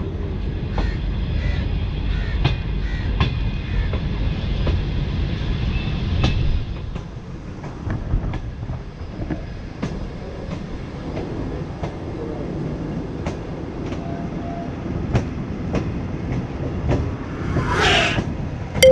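Greenline Express passenger train running on the track: a steady low rumble with repeated wheel clicks over the rail joints, and a brief high squeal that falls in pitch near the end.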